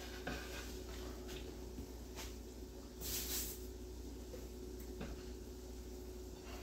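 Faint kitchen handling sounds: a brief rustle of a paper towel wiping the rim of a plate about three seconds in, with a few light clicks and a faint steady hum.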